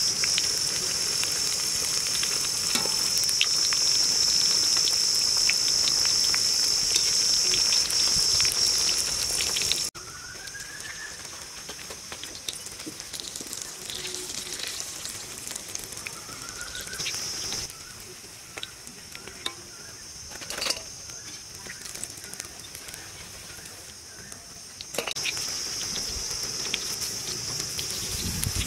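Bread pakoras deep-frying in hot oil: a steady sizzling hiss. It is loud for the first ten seconds, drops abruptly, and rises again near the end, with a few light clicks along the way.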